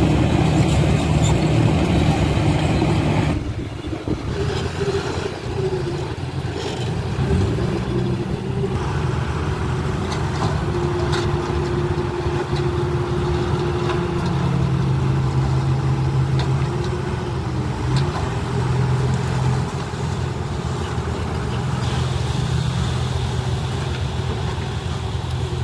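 Diesel engines of heavy earthmoving machinery running, their note rising and falling as they work. The sound changes abruptly about three seconds in, and the note is steadier after that.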